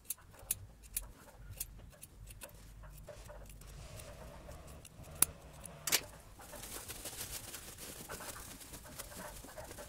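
Small scissors snipping through layered fabric, several short, sharp snips a second or so apart as the seam corners are clipped. Soft fabric rustling follows in the last few seconds as the sewn case is handled and turned right side out.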